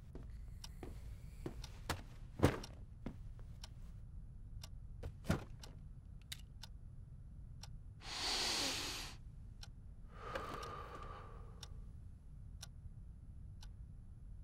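Clock ticking steadily, about once a second, with two louder knocks in the first few seconds and two soft whooshing swells in the second half.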